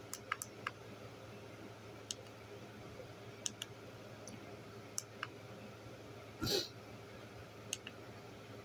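Scattered sharp clicks, about a dozen at irregular intervals, from the buttons of a handheld media player being pressed to step through its menus. One louder, longer bump comes about six and a half seconds in.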